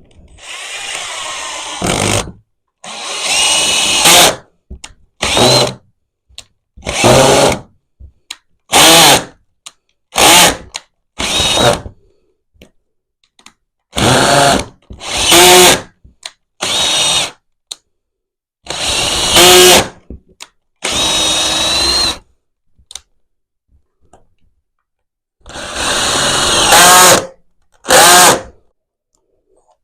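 Power drill run in about a dozen short bursts, each half a second to two seconds long, with brief pauses between them. The motor whine rises in pitch as it spins up in several bursts.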